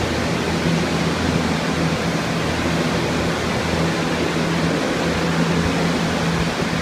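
A bank of structural drying equipment, Phoenix Focus air movers, 48-inch turbo fans and Phoenix R200 dehumidifiers, running together at once, drying out a water-damaged building. It is a loud, steady rushing of moving air over a steady low motor hum.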